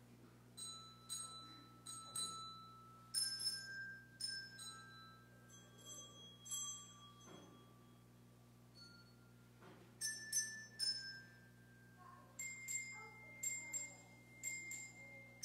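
A faint, slow melody of struck bell-like notes, each ringing on after it is struck, with a pause of about two seconds midway before the notes come quicker. A low steady hum runs underneath.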